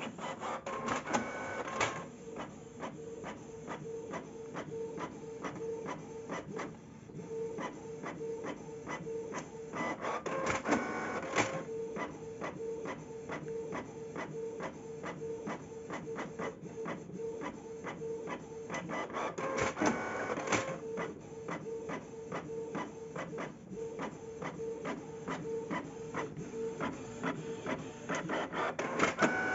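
Inkjet printer printing: a steady pulsing whir with rapid clicking as the mechanism runs, broken by a louder clattering burst about every nine to ten seconds.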